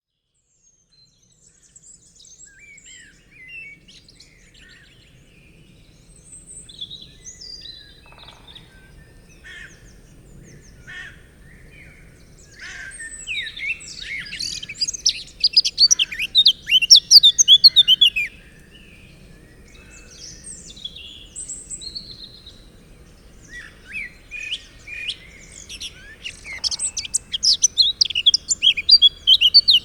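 Birds chirping and twittering: scattered calls at first, then two loud spells of dense, rapid chirping, one about halfway through and one near the end.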